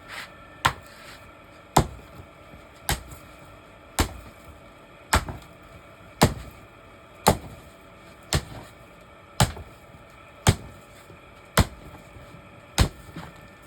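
Hand hammer striking steel to straighten it, steady blows at about one a second, each a sharp strike with a brief ring.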